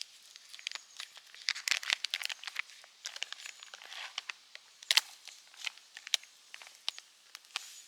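Irregular crinkling and crackling: many small sharp clicks, densest about two seconds in, with a louder crack about five seconds in.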